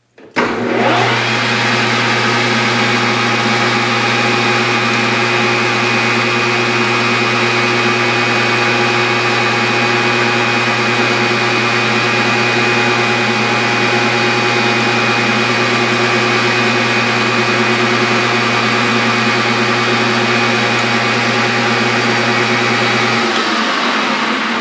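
Metal lathe starting up and running at steady speed, a steady hum with a high whine, while a center drill is fed into the end of a mild steel rod. It is switched off near the end and winds down.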